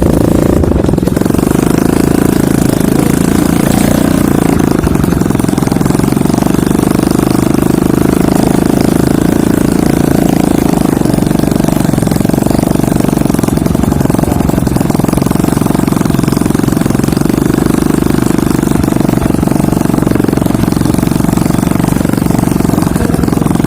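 Motorcycle engine running steadily under way, a loud, even low drone with no break in its pace.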